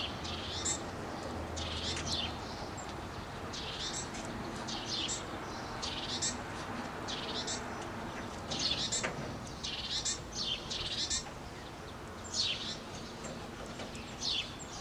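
Ducklings peeping: short, high-pitched calls repeated roughly one or two a second, some in quick pairs.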